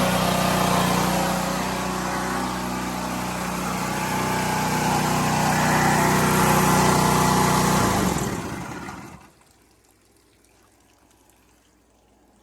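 A 2.5 GPM pressure washer's engine running steadily with a hiss over it. About eight seconds in it is shut off and spins down.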